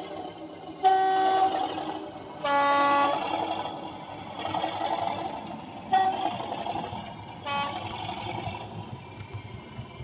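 Accurascale OO-gauge Class 37 model's sound decoder playing the locomotive's two-tone horn through its small onboard speaker: two longer blasts on different notes, then two short toots. Between the blasts runs the recorded English Electric diesel engine sound as the model pulls away.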